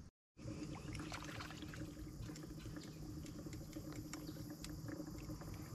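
Quiet outdoor ambience on a small fishing boat on a lake: a faint steady hum with light water patter and scattered small ticks.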